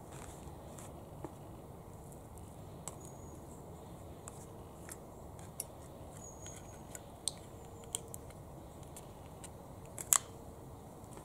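Table knife scraping and spreading butter on a freshly baked bread roll on a cutting board, with scattered light clicks and scrapes. The loudest is a sharp double click near the end.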